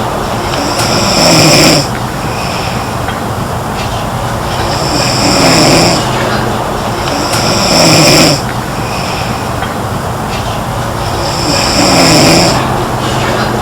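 A girl snoring: a loud snore with each breath, about four in all, coming every few seconds in a regular rhythm.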